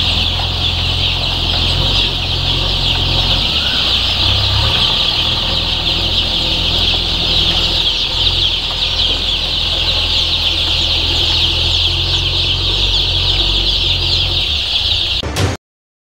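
A large flock of young native aseel chicks peeping all together in a brooder shed, a dense, steady chorus of high overlapping cheeps with a low steady hum underneath. It cuts off suddenly near the end.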